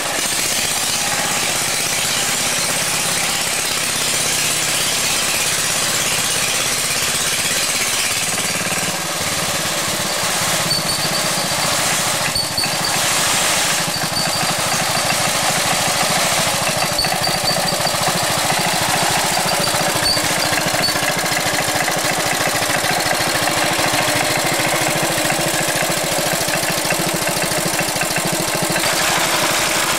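BCS walk-behind motor mower's engine running steadily as it cuts grass.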